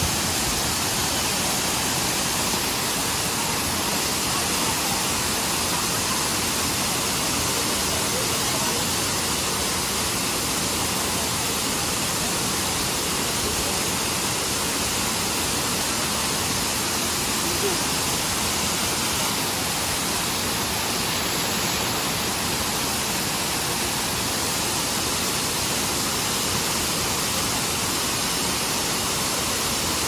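Wide waterfall pouring down a stepped rock face into a pool: a steady, even rush of falling water.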